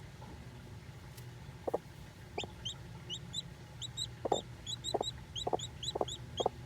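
A broody hen giving low, short clucks, a few at first and then about two a second, while her newly hatched chick peeps rapidly in high, short chirps. The clucks are the mother hen's call to her chick.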